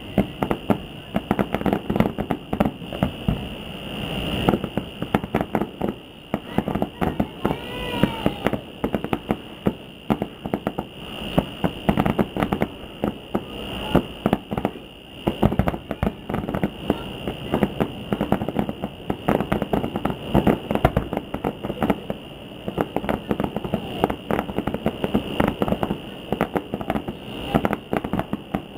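Fireworks display going off in many irregular bangs and crackles, one after another, with no let-up.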